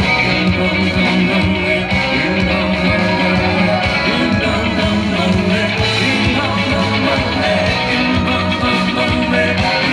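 Live rock band playing loud and steady: electric guitars, bass and drums with a regular beat, in a passage without clear lead vocals.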